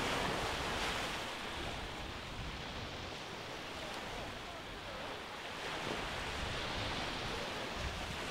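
Low, gentle surf breaking and washing up a sandy beach. The wash swells about a second in and again around six to seven seconds in.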